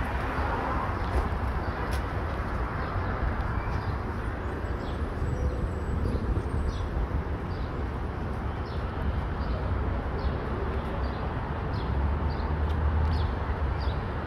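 Steady low rumble of outdoor city background. From about three seconds in, a bird gives short high chirps that drop in pitch, about twice a second.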